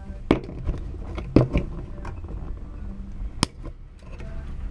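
A few scattered sharp knocks and clicks of hand work with a screwdriver, over a steady low rumble.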